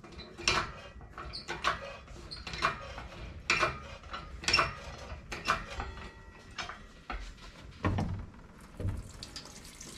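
Engine coolant dripping and splashing out of the engine block, about one drip a second.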